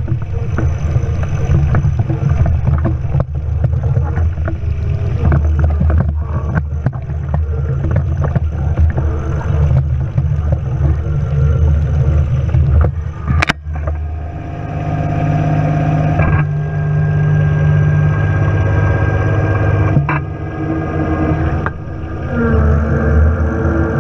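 John Deere 1023E compact tractor's three-cylinder diesel engine running under load, with rattles and clanks; its note shifts sharply about halfway through.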